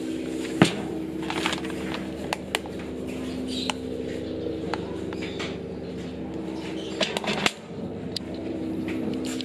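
A steady machine hum made of several close tones, with scattered clicks and light knocks of hand work on equipment. There is a sharper knock about half a second in and a quick run of clicks around seven seconds in.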